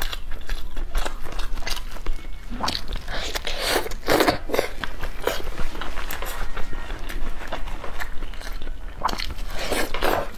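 Close-miked eating of chicken: biting, crunching and chewing, with many short clicks and smacks. There are a few louder bursts about four seconds in and near the end.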